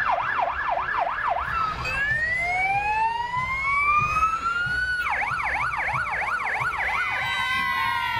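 Emergency vehicle sirens: a fast warbling yelp for the first two seconds, then a slow rising wail, then the fast yelp again about five seconds in, with several sirens overlapping near the end.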